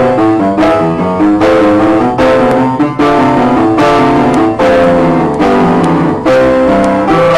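Instrumental closing music with a steady beat.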